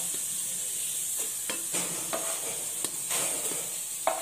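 Sliced onions frying brown in oil in a non-stick kadai, sizzling steadily while a wooden spatula stirs and scrapes them, with several sharp knocks of the spatula against the pan, the loudest near the end.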